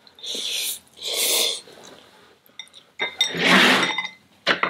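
Mouth and breath noises from someone eating fire-hot spicy noodles: two short hissing sucks of air, then a longer one with some voice in it about three seconds in. A few light clicks fall in between.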